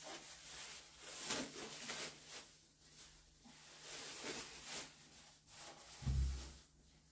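Thin plastic disposable apron rustling and crinkling in irregular bursts as it is pulled over the head and tied. A single dull thump about six seconds in.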